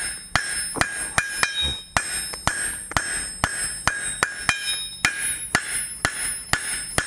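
A 3-pound blacksmith's hammer striking hot steel flat stock on an anvil, spreading out the handle of a forged fork: a steady run of about three ringing blows a second.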